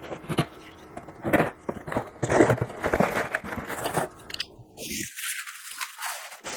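Tablet retail box being opened by hand: irregular crackles, scrapes and clicks of cardboard and plastic packaging, busiest a couple of seconds in.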